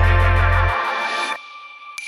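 Electronic background music with a heavy bass line. The bass cuts out under a second in, and the music then falls away to a faint held high tone.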